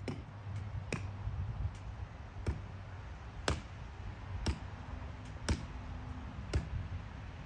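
A hand tool striking a tree stump: sharp, short blows about once a second, hacking the stump down.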